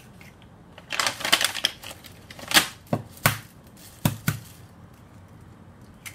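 Eggshells and eggs being handled while separating eggs. A burst of crackling about a second in is followed by five sharp clicks and knocks.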